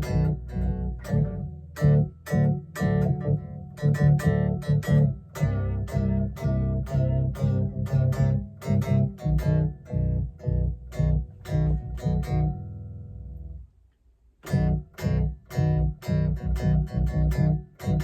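Guitar being played, a steady run of picked notes in an even rhythm that breaks off for about a second near the end and then starts again.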